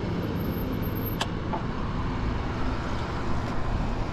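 Steady rolling noise of a fat-tire e-bike's 4-inch-wide tyres humming on asphalt at low speed, with one sharp click about a second in.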